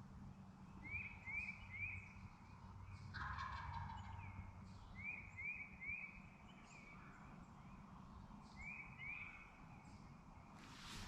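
A wild turkey gobbler gobbles once, faint and distant, about three seconds in, with a fainter gobble near seven seconds. Short rising chirps of a small songbird repeat in groups of two or three throughout.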